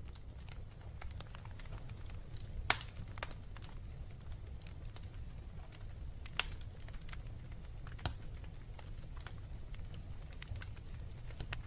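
Wood fire in a fireplace crackling, with irregular sharp pops over a low steady rumble; the two loudest pops come a little under 3 seconds in and again after about 6 seconds.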